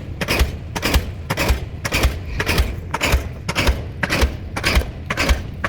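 Diesel pile hammer driving a pile: a steady rhythm of sharp, heavy blows, each a hard metallic strike with a deep thud.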